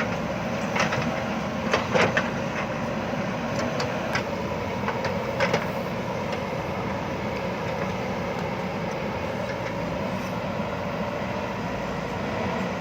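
JCB backhoe loader's diesel engine running steadily under work, with several sharp metal clanks in the first half.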